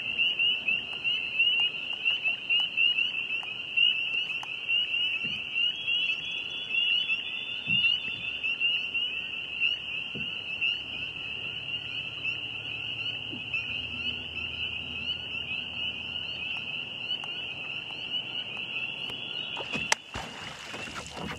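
A beaver slaps its tail on the lake surface near the end: one sharp smack and a splash, followed by a short wash of splashing water. Throughout, a dense chorus of frogs peeps steadily, a high, fast run of short rising notes.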